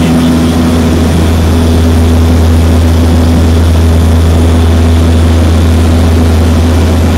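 Turboprop seaplane's engines and propellers running with a loud, steady drone.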